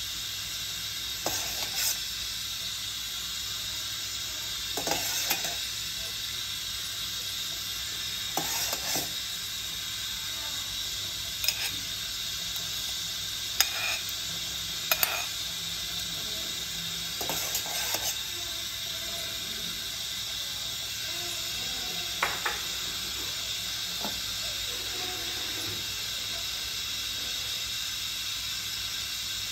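Steady hiss of a pot boiling on a portable gas stove, with about eight short clinks and scrapes of utensils against the pot and a ceramic bowl.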